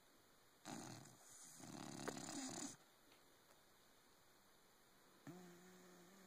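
A sleeping pet snoring: two rough snoring breaths about a second in, the second one longer. A steady low hum starts near the end.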